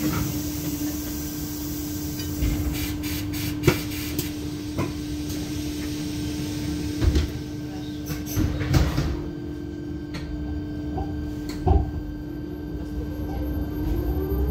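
Inside a KAMAZ-6282 electric bus standing at a stop: a steady hum with several knocks and clatters, then near the end the traction motor's whine rises in pitch as the bus pulls away.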